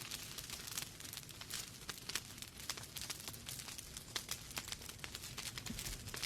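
Wood fire in a fireplace crackling and popping, with many small irregular snaps over a soft low rumble of the flames.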